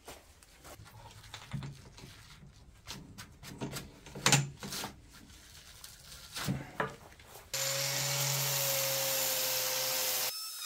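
A few scattered knocks and clatters as boards and a steel plate are handled. About seven and a half seconds in, an angle grinder with a red abrasive disc starts and runs steadily against the steel plate with a steady whine, then cuts off abruptly near the end.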